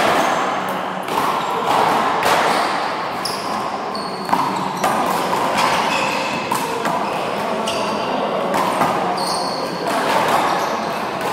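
A small rubber handball being struck by hand and smacking off the front wall and floor during a rally, a sharp slap every second or two that echoes around an indoor court. Sneakers squeak briefly on the court floor between hits.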